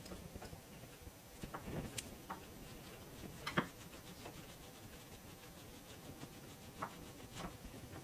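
Faint rubbing with a few small, sharp clicks scattered through it: a metal coin ring being polished and handled by hand.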